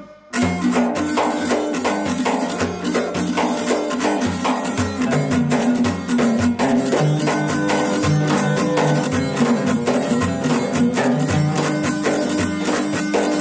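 Background instrumental music in a folk or traditional style, with a fast, steady percussion beat under sustained pitched tones; it starts just after a brief break at the very beginning.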